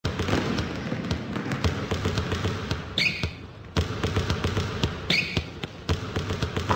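Basketballs bouncing on a hard floor in quick, dense bounces, with a short squeak about every two seconds in a repeating pattern.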